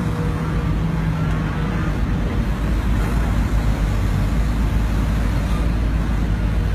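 Case CX210B excavator's diesel engine running steadily under load as the machine slews, a loud low drone. A humming note over the drone fades out about two seconds in.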